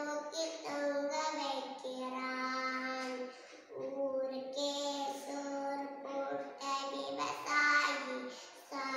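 A young girl singing solo without accompaniment, holding each note for a second or so, with a short break for breath about three and a half seconds in.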